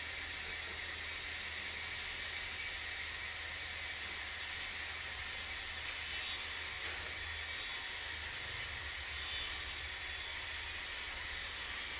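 Steady whirring hiss of workshop machinery running, with a low hum underneath.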